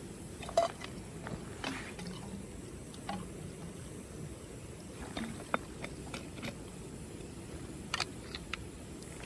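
Wood campfire crackling, with irregular sharp pops and snaps over a low steady hiss of burning.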